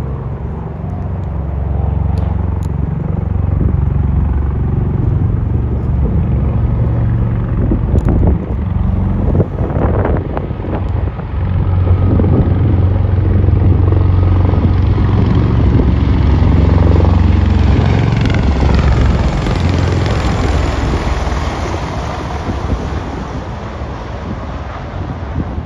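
MV-22 Osprey tiltrotor flying low overhead in helicopter mode, its proprotors giving a deep, steady beat over turbine noise. It grows louder, is loudest in the middle, and fades toward the end as it moves away.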